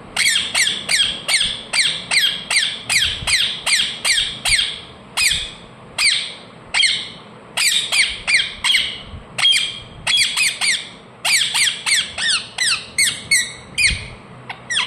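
Ringneck parrot calling in rapid runs of short, high calls, each sliding steeply down in pitch, about three a second with a few brief pauses.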